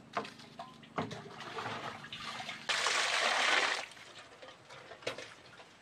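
Water poured into a metal bowl holding two goose eggs: a loud splashing pour lasting about a second, near the middle, after a softer lead-in. A few sharp knocks fall around it.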